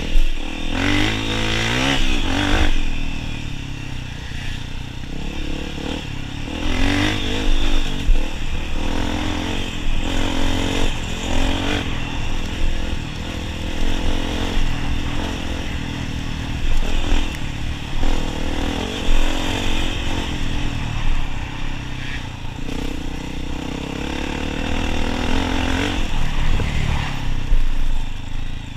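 Honda CRF250F dirt bike's single-cylinder four-stroke engine under way, its revs rising and falling again and again as the rider throttles on and off over the trail.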